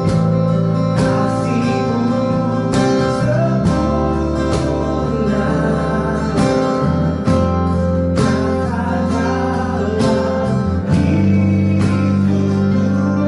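Music led by guitar over held chords and a deep bass line that shifts every few seconds, with occasional struck accents.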